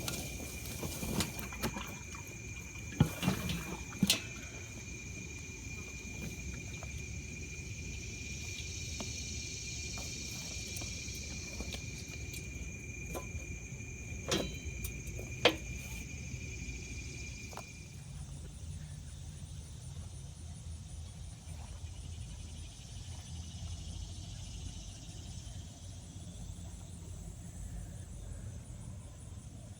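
Steady high-pitched insect trilling with a low background hum, and a few sharp clicks early and about halfway through; one of the trilling tones stops a little past the middle.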